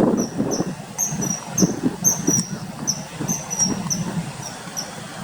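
Common kingfisher calling: a run of short, high, thin whistled notes, about three a second, over an uneven low background rumble.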